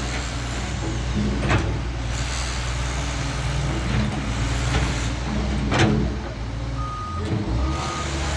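Doosan DX140 wheel excavator's diesel engine running steadily under hydraulic work, with a few sharp knocks along the way. Near the end its reversing alarm starts, beeping about once a second.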